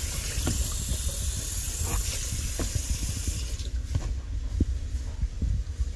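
Water running with a steady hiss that stops about three and a half seconds in, over light knocks and bumps of a plastic tub being handled.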